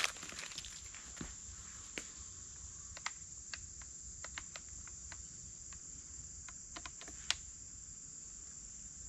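Steady high-pitched chorus of insects, cricket-like, with scattered light clicks and ticks over it, one sharper click about seven seconds in.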